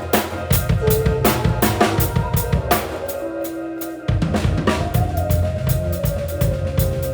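Band music driven by a drum kit: a steady beat of kick and snare strokes over a bass line and held pitched notes. The bass drops out for about a second near the middle and comes back fuller.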